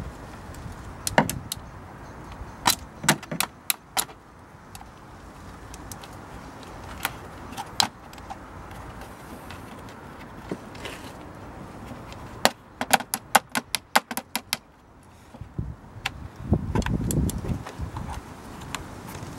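Scattered sharp metallic clicks and taps of a socket ratchet and tools working on a plastic engine cover, with a quick run of ratchet clicks about two-thirds of the way in. Near the end there is a muffled rumble of the cover being handled.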